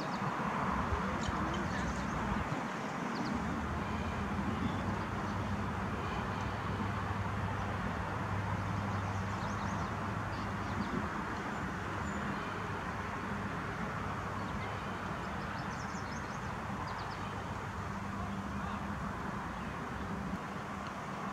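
Steady outdoor background noise with a low, even hum, and small birds chirping now and then.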